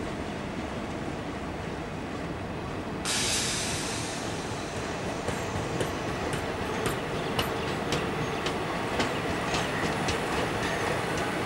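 Passenger coaches of a slow-moving electric-hauled train rolling past on jointed track: a steady rumble that turns brighter and hissier about three seconds in, then irregular sharp wheel clicks over rail joints and points, with a faint wheel squeal.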